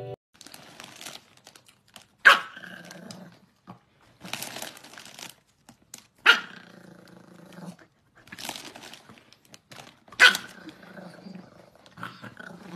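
A small dog, a chihuahua, barking sharply three times about four seconds apart, each bark running on into a pitched cry of about a second. Between the barks a foil snack bag crinkles.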